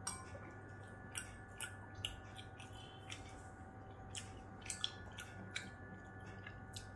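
A steel spoon set down in a glass bowl with a light clink, then scattered soft clicks of chewing and mouth sounds, spaced irregularly, over a faint steady electrical hum.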